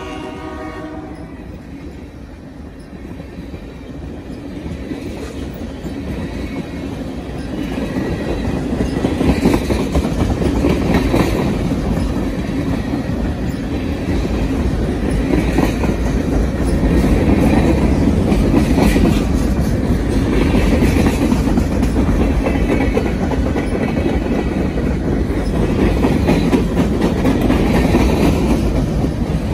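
Long freight train of boxcars and tank cars rolling past at speed: a heavy steady rumble of wheels on rail, with sharp clickety-clack every second or two as wheels cross rail joints. It grows louder over the first ten seconds and then holds. A train horn's last note dies away in the first second.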